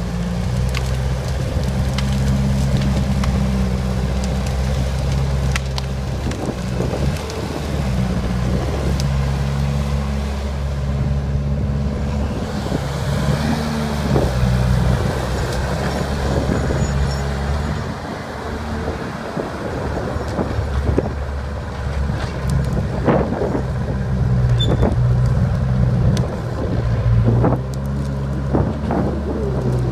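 John Deere crawler dozer working, its engine running steadily under load and changing pitch as it pushes. Sharp knocks and clanks come in the last third.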